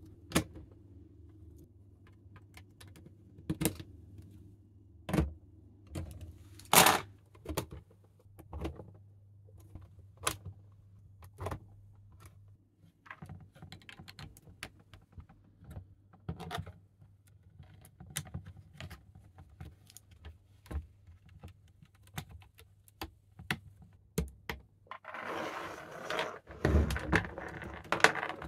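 LEGO Technic plastic parts being handled and pressed together, with separate sharp clicks and knocks every second or so, the loudest about 7 seconds in. Near the end the clicking gives way to a denser rustle and clatter as motor cables and wiring are handled.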